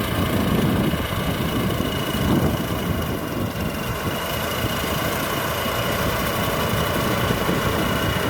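Combine harvester's 260-hp diesel engine running steadily, with a thin, constant high whine over the engine note.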